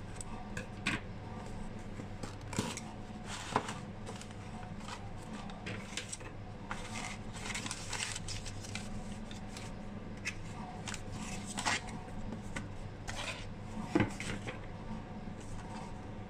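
Unboxing handling sounds: scissors cutting at a cardboard box, cardboard flaps and crumpled packing paper rustling, with scattered sharp clicks and knocks over a steady low background hum.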